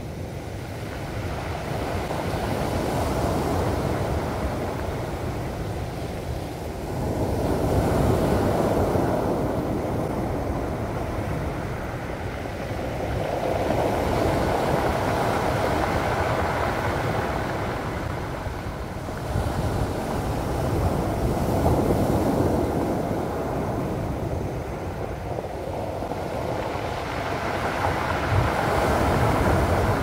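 Sea waves at high tide breaking and washing up a pebble beach, the surf swelling and ebbing about every five to seven seconds.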